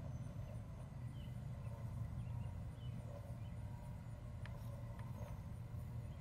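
Lawn mower engines running at a distance, a steady low hum. Faint short chirps and a couple of light clicks about two thirds of the way in.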